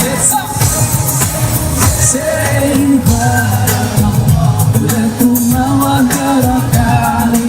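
Live pop song with singing over a band, with a steady beat.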